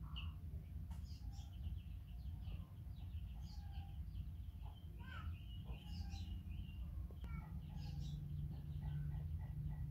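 Small birds chirping and twittering on and off, over a steady low hum.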